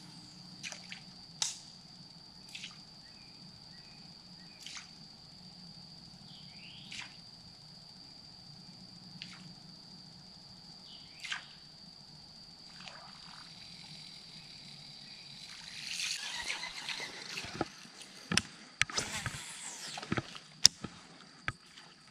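Quiet water sloshing and dripping around a fishing boat on a still river, with a steady high whine underneath and scattered faint chirps and clicks. About three quarters of the way through, the water noise swells into a few seconds of splashing, followed by several sharp clicks.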